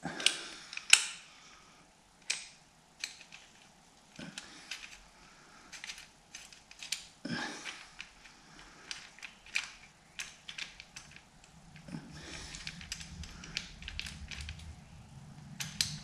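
Irregular metallic clicks and clinks of hands handling the timing chain and its sprockets and fittings on a Jaguar E-Type engine block. A low steady hum comes in about twelve seconds in.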